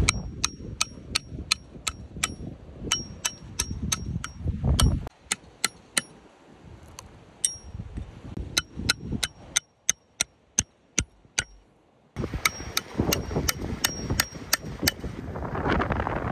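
Metal striking metal as a tool is hammered into the top of a wooden log: a steady run of sharp ringing clinks, about two to three a second. Wind buffets the microphone at the start and again near the end.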